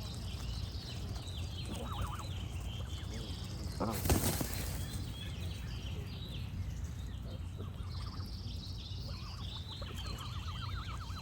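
Songbirds chirp continuously over a steady low rumble, with geese honking now and then. The loudest sound is a single sudden burst about four seconds in.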